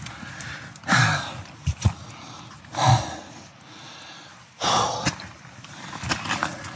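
A man breathing hard from the exertion of a steep uphill climb: three heavy exhalations about two seconds apart, with faint scuffs and knocks of footsteps between them.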